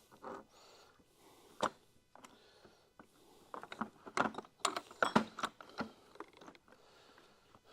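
Metal clinks and knocks of hand tools and engine parts being handled during an engine teardown: a single click, then a quick run of clinks around the middle.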